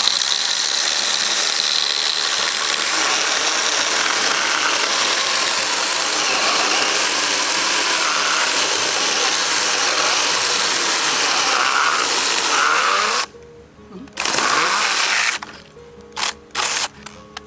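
Kebtek 16.8 V cordless handheld mini chainsaw running and cutting through a fallen log for about thirteen seconds, then stopping. A second short cut of about a second follows, then three brief blips of the saw near the end as the log is cut through.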